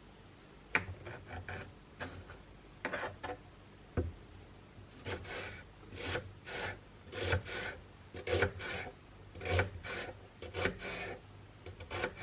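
Hand food preparation in a kitchen: a series of irregular rubbing and scraping strokes with a few sharp clicks, sparse at first and coming closer together and louder from about five seconds in.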